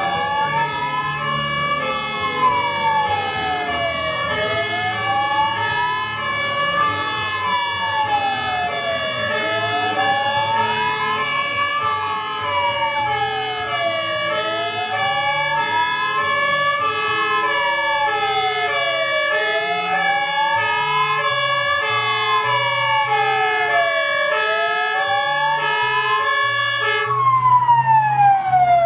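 Fire engine siren wailing, slowly rising and falling about every five seconds, with a repeating pattern of short steady electronic tones over it. Near the end the tones stop and the siren changes to a quicker sweep.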